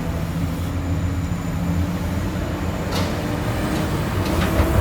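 Komatsu PC200 excavator's diesel engine running steadily, with a short knock about three seconds in and a few more near the end.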